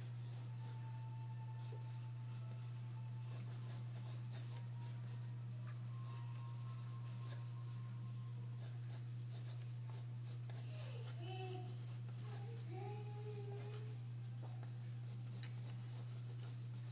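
Pencil scratching on drawing paper in many short sketching strokes, over a steady low electrical-sounding hum.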